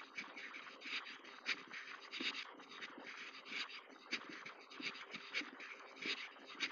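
Footsteps crunching on gravel at a steady walking pace.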